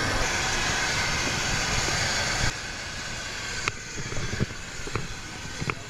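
Steady, loud rushing engine noise of aircraft on the apron. About two and a half seconds in it cuts to a quieter background with four sharp knocks in a walking rhythm: footsteps on the plane's boarding steps.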